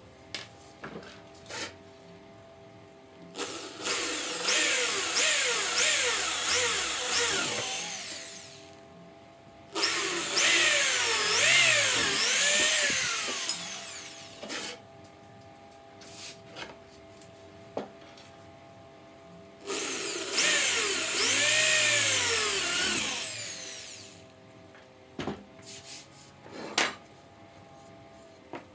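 A handheld electric power tool runs three times, each run lasting a few seconds. Its motor pitch swings up and down and winds down at the end of each run. Short knocks from wood being handled on the bench come between the runs.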